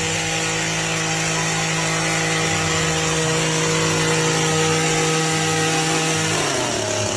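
Power tool running under load, a loud steady hum with a hiss of cutting over it; about six seconds in its pitch sags and wavers.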